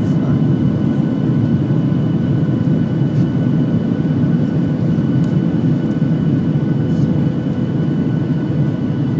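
Jet airliner heard from inside the passenger cabin: a steady, loud engine roar with a few constant whining tones over it, holding level without rising or falling.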